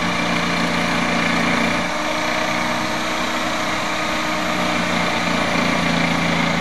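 Corded electric jigsaw running steadily while cutting through a plywood sheet, its pitch shifting slightly about two seconds in.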